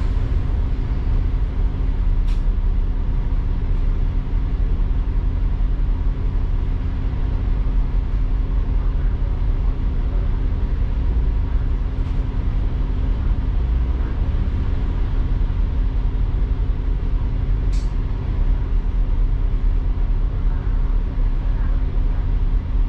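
Interior sound of a double-decker bus from the upper deck: a steady engine drone and road rumble as the bus drives. Two brief high-pitched sounds cut through, one about two seconds in and one later on.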